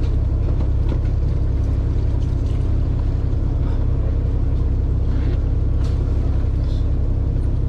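Engine of a small sightseeing boat running steadily under way, a deep even drone with a faint steady hum above it.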